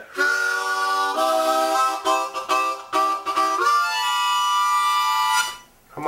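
Harmonica played in chords: a few short phrases with brief breaks, then one long held chord that stops shortly before the end.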